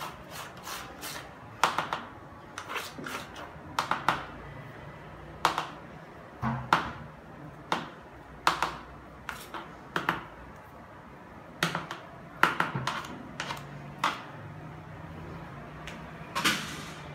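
Irregular sharp clicks and taps of a plastic scraper against the rim of a plastic bucket of batter, about one or two a second, some in quick pairs.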